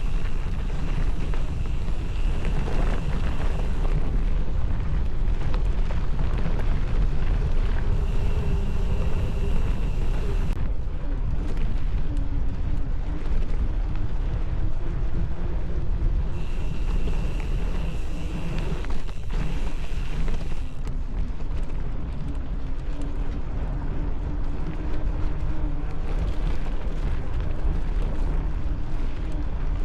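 Continental Race King bicycle tyres rolling on a hard surface: a heavy, steady rumble of rolling and wind noise, with a faint tread hum in it whose pitch drifts up and down a little, fading in and out.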